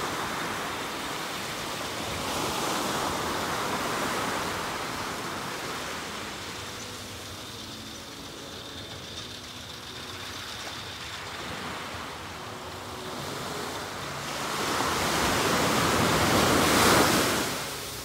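Small waves breaking and washing up a sandy beach: a steady hiss of surf that swells twice, loudest near the end.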